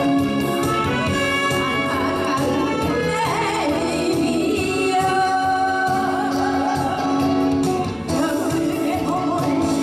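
A woman sings a Korean popular song into a microphone, backed by a live band of electric guitar, saxophone, accordion and keyboard, all amplified through stage speakers.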